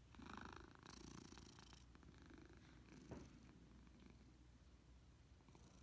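A domestic cat purring softly, a fine rapid pulsing that is strongest in the first couple of seconds. There is one brief, slightly louder sound about three seconds in.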